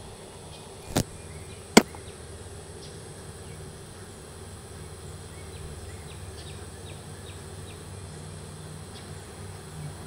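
Honey bees buzzing around open hives, a steady hum. Two sharp knocks come about one and two seconds in.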